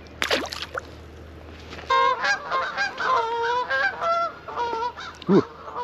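A small fish splashes into the water right at the start. From about two seconds in, several waterfowl call over and over, loud pitched calls overlapping one another.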